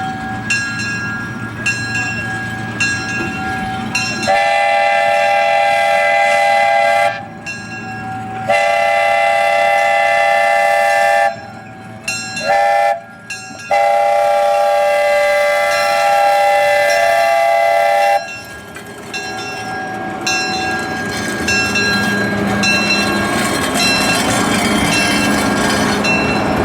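Buckeye three-chime steam whistle on a narrow-gauge steam locomotive blowing the long, long, short, long signal. A locomotive bell rings before the blasts. Train noise builds after them.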